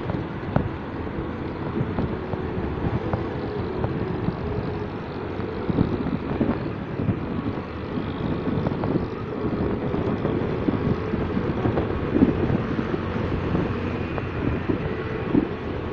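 Motorcycle riding at road speed: steady engine and road rumble, with wind buffeting the microphone in short thumps.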